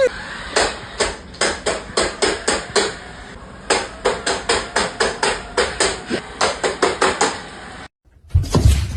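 A rapid series of sharp knocks, about three to four a second with a short pause partway, stopping abruptly near the end, followed by a brief loud thump.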